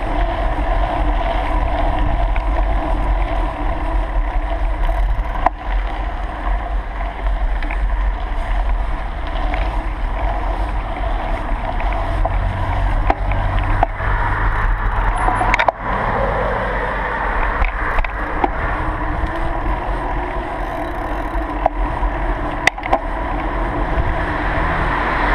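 Ride noise from a moving bicycle: steady wind rumble on the microphone with tyres rolling over the path and a few sharp knocks from bumps. Rushing river water alongside blends in.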